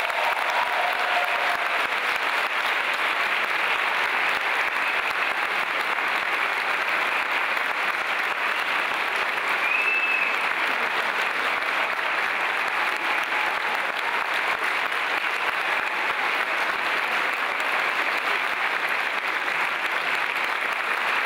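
A large audience applauding steadily, a long welcoming ovation as a speaker is called to the stage.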